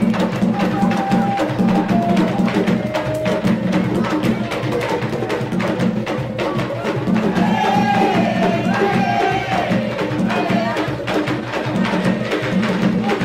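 Tambor de crioula drumming: hand drums in a fast, steady, interlocking rhythm with the dry clack of matraca sticks beaten on the wooden body of the big drum. A singing voice rides over it and is strongest a little past halfway.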